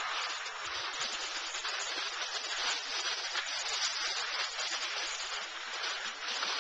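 Steady rushing hiss of sliding down a slope on soft, slow spring snow, with wind rushing over the camera microphone.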